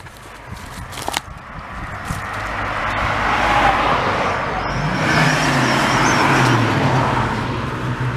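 A motor vehicle's engine and tyre noise swell up and then ease off a little, after two sharp knocks in the first second or so.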